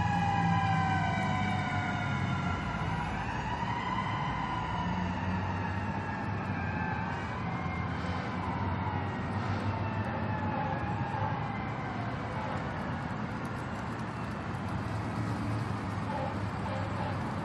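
Emergency vehicle sirens wailing in slow rising and falling glides, loudest in the first few seconds and then fading, with another siren rising near the end, over a steady low rumble of traffic.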